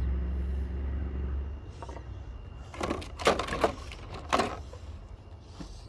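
A steady low hum that stops about one and a half seconds in, then a few sharp clinks and clatters of metal hand wrenches being picked up and set down.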